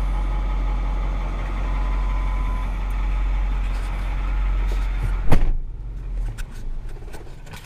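Ford 6.4 Powerstroke V8 diesel idling just after a restart on new fuel filters. A sharp knock comes about five seconds in, and the engine then dies away and stops: a stall that the owner puts down to the fuel, with air still in the fuel line after the filter change.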